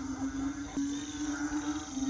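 Night chorus of frogs or toads and insects: a steady low drone with a haze of chirring above it. A faint drawn-out animal call rises and falls in the second half.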